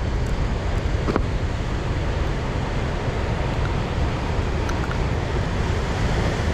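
Steady wash of sea surf on the rocks, mixed with wind buffeting the microphone.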